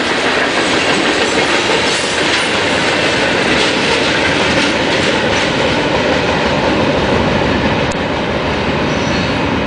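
Freight train cars rolling past at speed: a loud, steady rumble of steel wheels on rail with clattering over the track.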